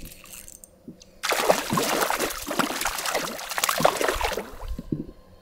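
A hooked trout thrashing and splashing at the surface of a small pond for about three seconds, starting about a second in.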